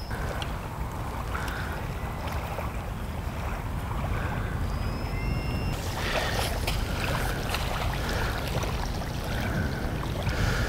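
Small waves washing up a sandy shoreline in a steady low wash of water, growing a little louder about halfway through.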